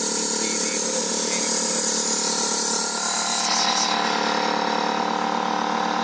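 Air compressor running steadily, a hum with a hiss over it, supplying air through the spark plug hole to hold the valves shut while the valve springs are compressed.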